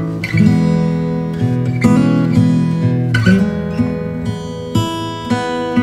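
Background music: a plucked and strummed acoustic guitar tune.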